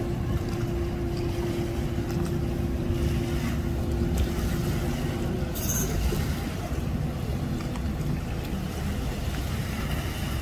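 An engine idling with a steady hum, under a rough, gusting low rumble of wind on the microphone. About halfway through the hum drops away with a brief click, leaving the wind rumble.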